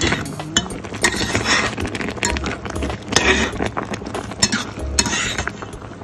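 A utensil clinking and scraping against a cooking pot as wilted spinach is stirred, with irregular clinks and knocks.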